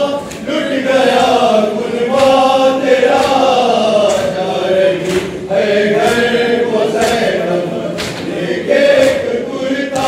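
Men chanting a noha, a Shia lament: a lead reciter sings into a microphone while a group of men chants along with him. A faint beat comes about once a second.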